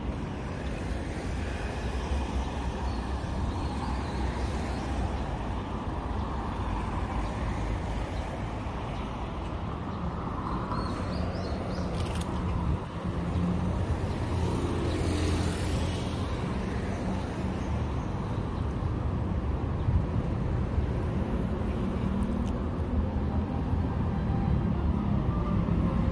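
Street traffic: a steady low rumble of cars passing on the road.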